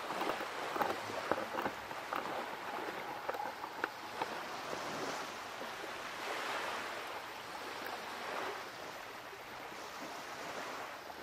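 Ocean waves washing, a steady hiss of moving water with a few faint clicks in the first few seconds and a gentle swell about halfway through.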